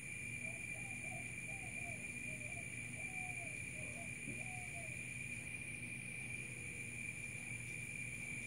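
Insects droning steadily. A bird gives a run of about seven short, soft calls in the first five seconds.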